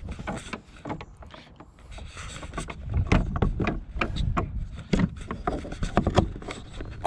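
Irregular knocks, clunks and scraping of hard plastic as the Minn Kota trolling motor pod is handled and seated in the kayak hull's mount, getting louder about three seconds in.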